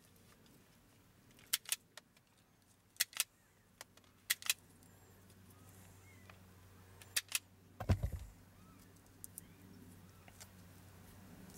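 Automatic wire stripper closing on and releasing the video system's harness wires: four sharp double clicks, a second or so apart. A dull thump about eight seconds in.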